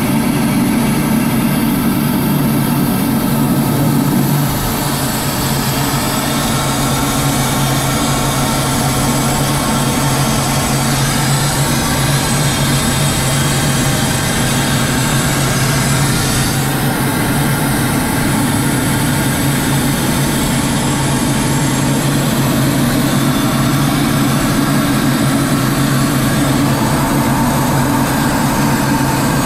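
Cockpit noise of a CF-5D jet climbing out after takeoff: its twin J85 turbojets and the airflow over the canopy make a loud, steady noise with a low drone underneath. The level dips slightly about four seconds in.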